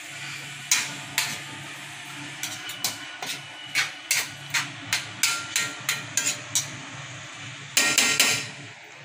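Metal spoon knocking and scraping against a pan while stirring frying diced tofu: a string of sharp taps, about one or two a second, with a quick flurry of clatter near the end.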